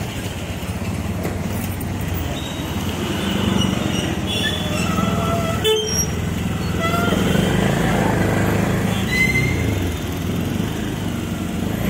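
Steady vehicle engine and road noise of a ride through traffic, with a few short higher-pitched sounds over it.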